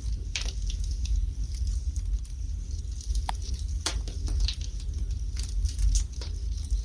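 Wood fire burning in a fireplace, with irregular sharp crackles and pops over a steady low rumble.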